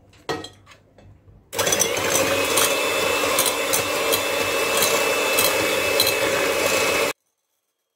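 Electric hand mixer running at a steady speed, its beaters whisking eggs and sugar in a glass bowl until the mixture is pale and doubled. A few light knocks come first as the beaters go into the bowl; the motor starts about a second and a half in and cuts off suddenly about seven seconds in.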